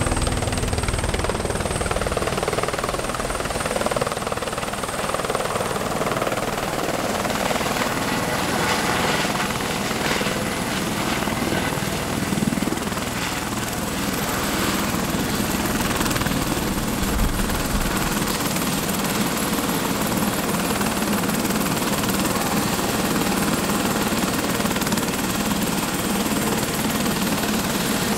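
Tour helicopter coming in to land and then running on the helipad with its rotor turning: a steady rotor and engine noise with a thin high whine over it.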